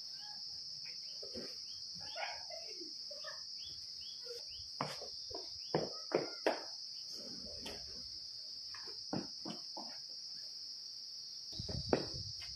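Steady high-pitched drone of insects, with a few short thuds and knocks around the middle and near the end.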